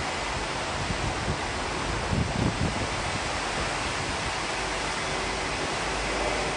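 Airbus A321-200 jet engines running, heard as a steady broad rush with a faint high whine, the low rumble building near the end. Wind buffets the microphone briefly about two seconds in.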